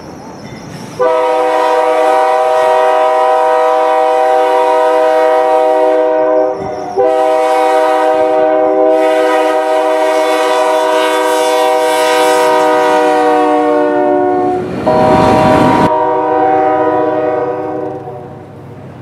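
Multi-note air horn of a GE C40-8 (Dash 8-40C) diesel locomotive blowing three long blasts, with short breaks about six and fifteen seconds in. A rushing noise swells under the last blast as the locomotive goes by, and the horn's pitch drops slightly as it passes.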